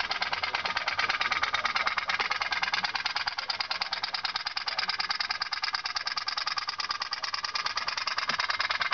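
Toy pop-pop boat's tin steam engine popping rapidly and evenly, its boiler diaphragm flexing to push water pulses out of the exhaust tubes.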